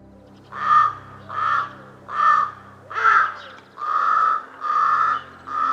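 A crow cawing repeatedly, about seven harsh caws roughly one every 0.8 s, starting about half a second in. The later caws are longer and drawn out.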